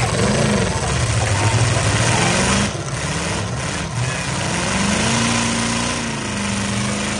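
Several demolition derby pickup trucks' engines running and revving, their pitch rising and falling as the trucks accelerate and spin their wheels in the dirt.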